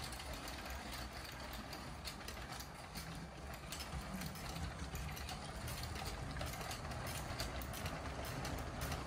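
A LEGO train running across plastic track and switches: a low electric-motor whir with many rapid clicks of wheels over rail joints and switch points, a little louder from about three seconds in.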